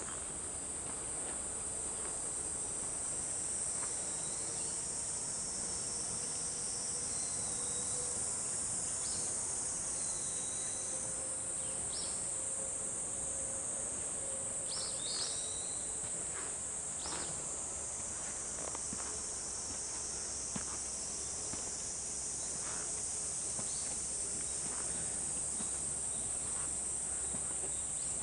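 A steady, high-pitched chorus of insects in summer forest, with scattered short bird chirps.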